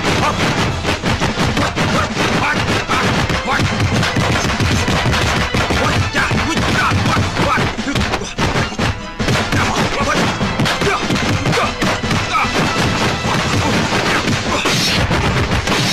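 Rapid, dense strikes of punch and block sound effects from a Hong Kong martial-arts film fight, over music, with a brief lull a little past halfway.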